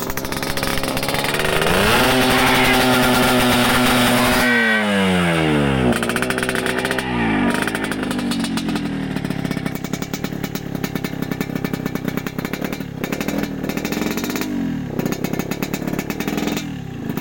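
Yamaha RX-King's 135 cc two-stroke single-cylinder engine revved while standing. It rises a couple of seconds in, holds high for about two seconds, drops back sharply, blips once more, then settles low with one short blip near the end. The engine is set up for the raspy 'ngorok' (snoring) exhaust note.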